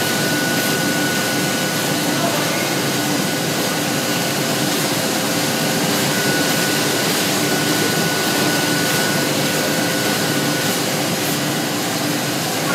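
MAN Roland 705 sheet-fed offset press running with a steady airy hiss and a faint hum, and a thin high whine that drops away near the end.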